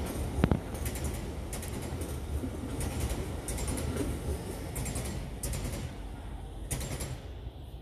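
Freight wagons rolling past at low speed: a steady low rumble with a regular clicking of wheels over rail joints about every two-thirds of a second, and one sharp clunk about half a second in. The clicking stops and the sound drops away near the end.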